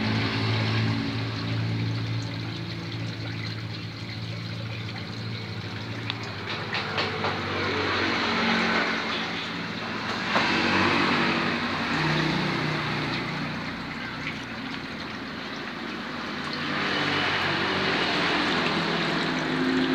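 Water pouring steadily from a pipe into a tarpaulin fish pond and splashing on the surface, over a low steady hum whose pitch shifts a few times.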